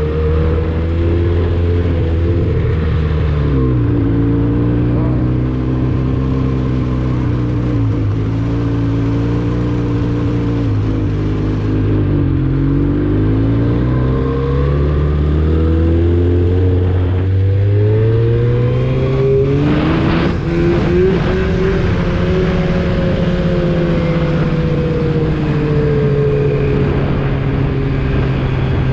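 Arctic Cat snowmobile engine running under way, its pitch sagging and climbing again several times as the throttle eases off and opens up. There is a short rush of noise about twenty seconds in.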